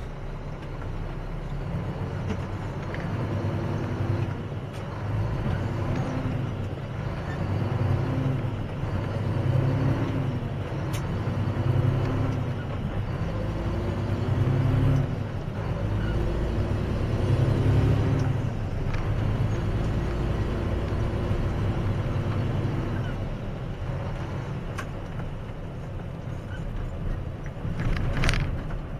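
Mack dump truck's diesel engine heard from inside the cab, revving up and dropping back again and again as the driver shifts up through the gears of the Eaton Fuller manual transmission. A short hiss comes near the end.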